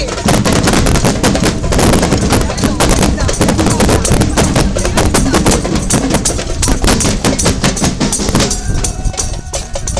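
Loud, rapid drumming and percussion of parade music, dense and fast, with voices mixed in; the drumming thins out about eight and a half seconds in.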